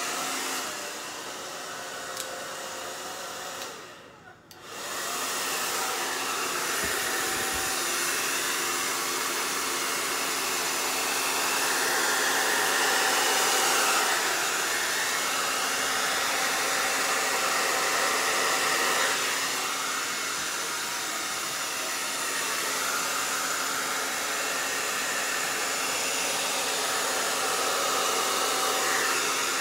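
Handheld hair dryer running on its high fan, cool setting: a steady rush of air with a low hum under it. It dips out briefly about four seconds in, then blows on steadily.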